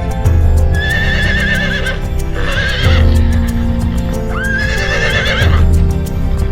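A horse whinnying three times, each call high and quavering, over background music with a steady beat.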